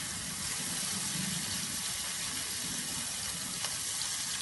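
Chopped small onions and peppercorns sizzling steadily in hot oil in an iron kadai, with a few faint pops.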